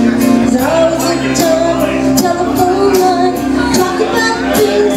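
A woman singing into a microphone over a karaoke backing track, both played loud through a PA system.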